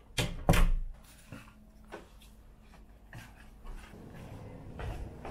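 A door knob turning and the door latch clicking open, two sharp clicks in quick succession at the start, followed by irregular footsteps of slide sandals going down wooden stairs.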